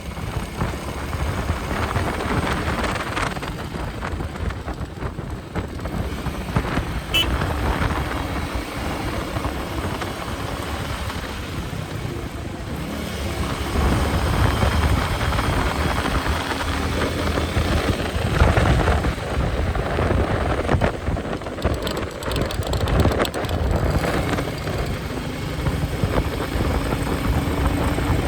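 Royal Enfield Meteor 350's single-cylinder engine and exhaust running at cruising speed, with its pitch rising and falling as the throttle changes, and wind rushing over the microphone.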